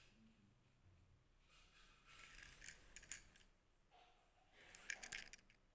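Sketch pen scratching on paper in quick colouring strokes, heard as two bursts of sharp, scratchy clicks, the second shorter than the first.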